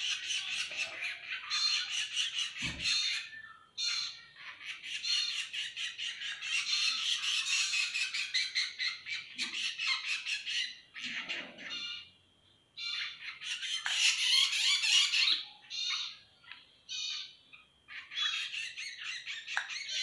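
Fledgling drongos and sirpu calling: harsh, rapid squawking in bursts of a few seconds with short gaps between them. A soft thump about three seconds in.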